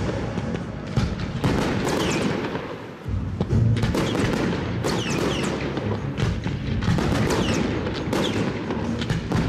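Aerial fireworks bursting: a run of sharp bangs and crackles with a few short falling whistles, over a music track. The sound drops briefly about three seconds in, then a loud burst comes back in.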